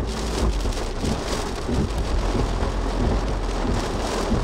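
Heavy rain pelting the car's windshield and roof, heard from inside the cabin, as a steady hiss with a constant low rumble underneath.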